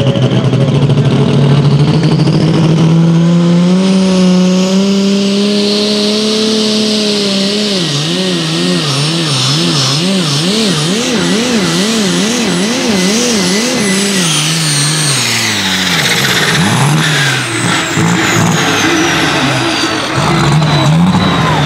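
Super stock pulling tractor's engine at full throttle under the sled's load: the note climbs for several seconds, then swings rhythmically up and down about one and a half times a second, and falls away about 15 seconds in as the pull ends. A high turbo whistle then slides steadily down in pitch.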